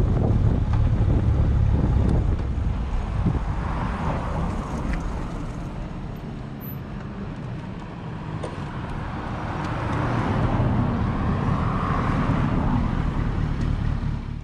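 Motorcycle running while being ridden, with wind rumble on the microphone; the low rumble eases about two seconds in as the bike slows, and the engine runs on at low speed.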